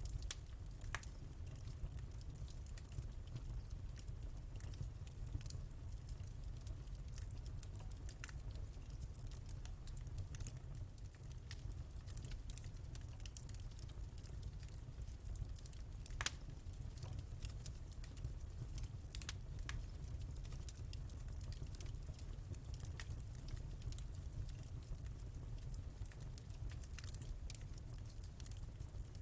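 Wood fire burning in a fireplace: irregular crackles and pops over a steady low rumble and hiss, with one louder pop about sixteen seconds in.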